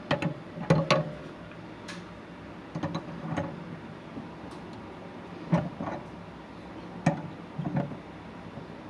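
Irregular sharp clicks and light knocks, about a dozen, spaced unevenly, as of hand work with tools or parts.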